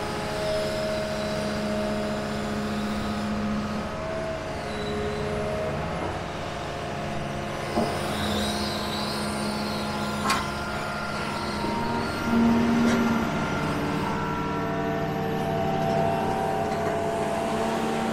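Diesel engine of a John Deere 210G excavator running as it digs, its pitch shifting a few times as the hydraulics take load, with two sharp knocks about eight and ten seconds in.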